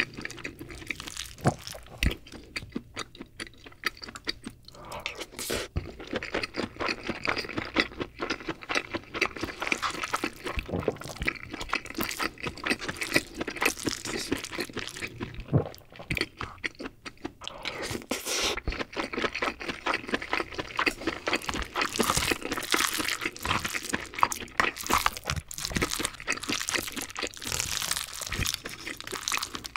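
Close-miked wooden spoon stirring and scraping rice around inside a king crab's shell, the shell crackling, with chewing and mouth sounds in between.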